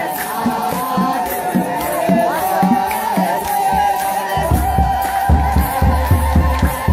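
A congregation chanting together in Ethiopian Orthodox liturgical song, with held notes over a drum beating about twice a second. About four seconds in, the drum beats become much heavier and deeper.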